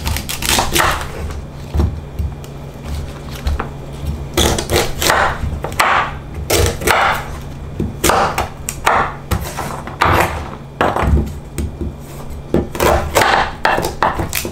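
Knife cutting through a thick, fibrous vegetable stem on a cutting board: repeated crunching cuts, each ending in a knock on the board, at an uneven pace of about one a second, over a steady low hum.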